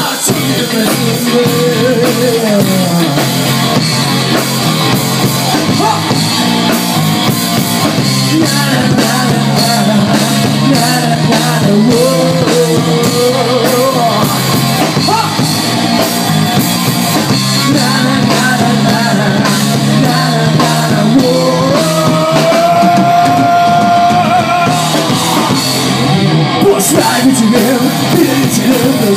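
Live rock band playing loudly: a singer over amplified electric guitar, electric bass and drum kit, with a long held melodic note about three quarters of the way through.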